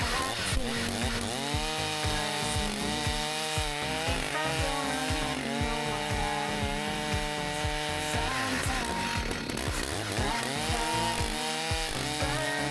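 A large chainsaw running at high revs, cutting. Its pitch climbs about a second in, then sags and recovers twice as the chain loads up in the wood. A steady beat of background music plays beneath it.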